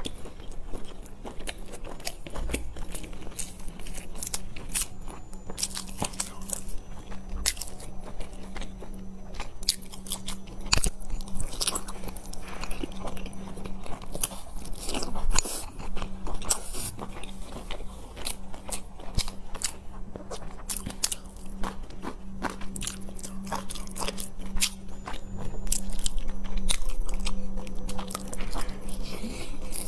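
Close-miked eating of large baked stuffed buns: bites into the bun and chewing, with many small sharp clicks and crackles from the mouth. A steady low hum runs underneath, and the bites get louder near the end.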